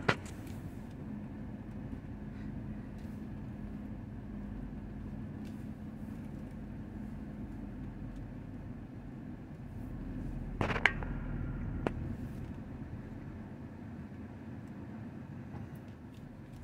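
Tiller ladder fire truck idling, a steady low engine hum, with a couple of sharp clicks about eleven seconds in.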